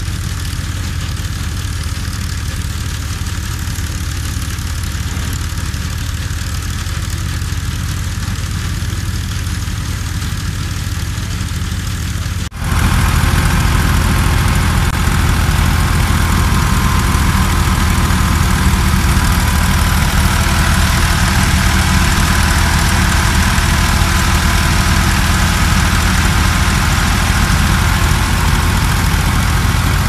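Tractor-driven wheat thresher running steadily: the tractor engine's low drone under the thresher's hum. About twelve seconds in it becomes louder and nearer, with a steady higher hum in it.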